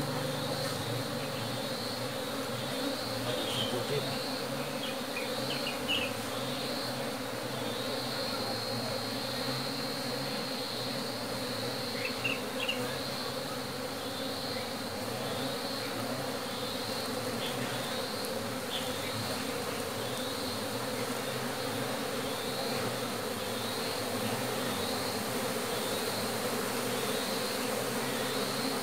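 A mass of honeybees buzzing in a dense, steady hum while colonies are being merged into one hive. A few faint knocks and rustles come and go.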